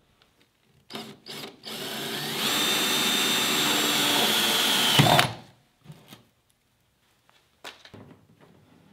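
Cordless drill with a 5/8-inch paddle bit boring a hole through a plastic kayak deck. Three short trigger blips about a second in lead into a steady run of about three and a half seconds, which ends in a loud knock. A few light handling clicks follow.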